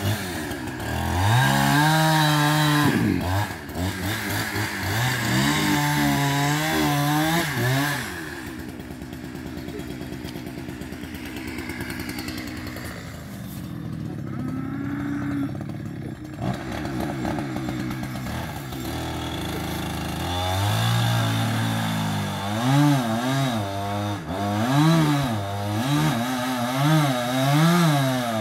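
Chainsaw engine running and being revved: its pitch climbs and drops in several surges, holds a steadier, lower note through the middle, then rises and falls quickly over and over near the end as it cuts into a tree trunk.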